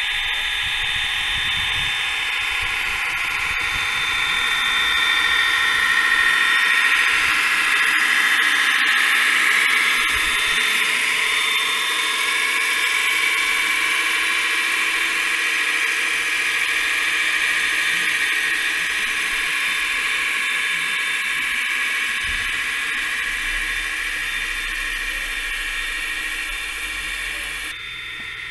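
A machine giving a steady high-pitched whine whose pitch drifts slowly.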